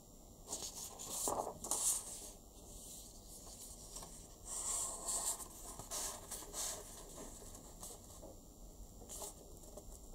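A square sheet of 15 cm origami paper being folded in half by hand and pressed flat: irregular rustles and scrapes of the paper sliding on the tabletop and fingers smoothing along the crease, in a few short bursts.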